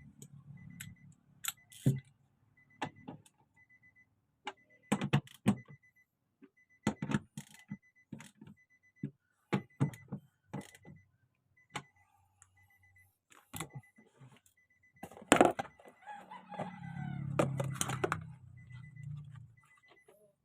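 Short, high electronic beeps repeating on and off, over scattered sharp metallic clinks and knocks of tools and parts being handled. A low rumble swells briefly near the end.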